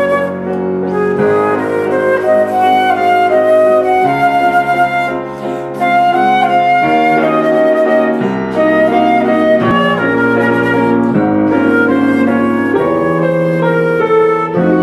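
Concert flute playing a ballad melody in long held notes, over piano accompaniment with bass notes changing every second or two.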